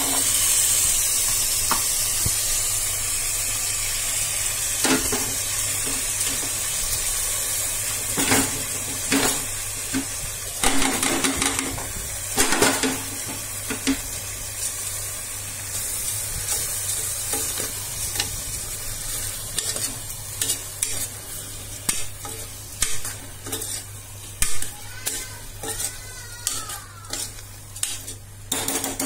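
Soaked basmati rice and vegetables sizzling in hot oil in a pressure cooker while a metal spatula stirs them, scraping and clinking against the pot. The sizzle fades gradually, and the scrapes and clinks come more often toward the end.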